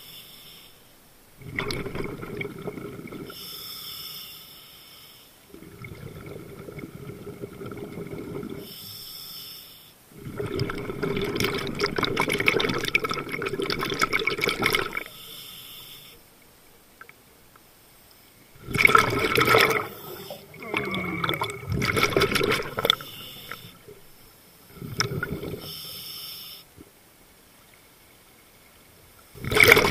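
A scuba diver breathing through a regulator underwater: about seven breaths of hiss and bubbling, each a few seconds long, with quiet gaps between them.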